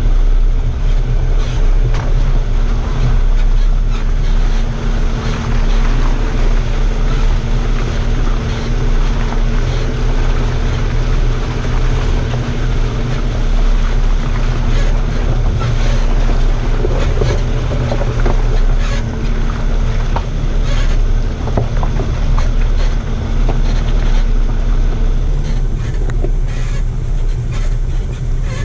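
A 4x4 driving slowly along a rough, muddy lane: a steady engine drone, wind buffeting the microphone, and scattered knocks and clicks as the vehicle goes over stones and ruts. The steady engine note drops away near the end.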